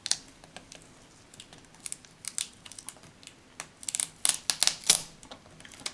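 Adhesive tape being peeled off a laptop's LCD screen cable connector: a run of short crinkling crackles and ticks, thickest about four seconds in.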